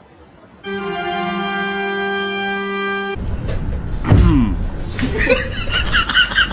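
A held organ-like chord sounds for about two and a half seconds and cuts off. It is followed by a loud noisy stretch with a falling pitched cry and then rapid high-pitched chirping, about four or five a second.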